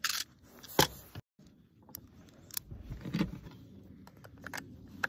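Sharp metallic clicks and small rattles of cartridges being pressed one by one into a rifle's detachable box magazine, then the rifle itself being handled. The loudest clicks come at the start and just under a second in.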